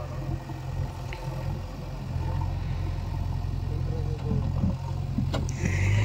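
Low, steady diesel engine hum of a JCB 3DX backhoe loader at work, getting louder shortly before the end as the engine revs up.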